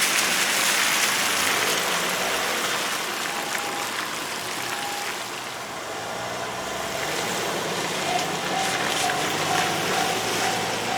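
Japanese railway level-crossing alarm starting to ring, a repeating electronic ding about twice a second in the last few seconds, after two faint single dings midway. Under it, a steady rushing hiss is the loudest sound throughout.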